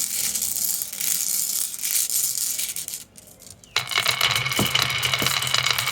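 Marbles clicking and rattling as they roll down a plastic marble run track. There is a short lull about three seconds in. Then a fresh run of clicking and rolling starts with a ringing hum.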